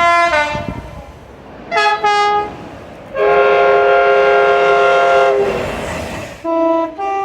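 UK train horns sounding a series of blasts: a note that falls in pitch at the start, two short notes about two seconds in, a long two-tone chord held for over two seconds, then two short notes of different pitch near the end, with the rumble of the train between them.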